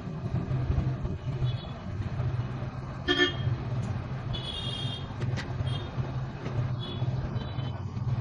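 Road traffic with vehicle horns sounding: a steady low hum, with a short horn blast about three seconds in and another toot about halfway through.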